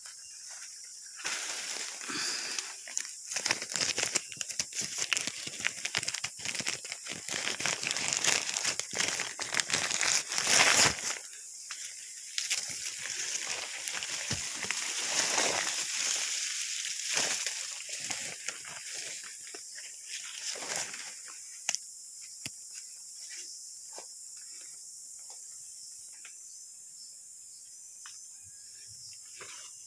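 Leaves, twigs and undergrowth rustling and crackling as someone pushes through dense vegetation; the rustling dies down about twenty seconds in. A steady high insect drone runs underneath throughout.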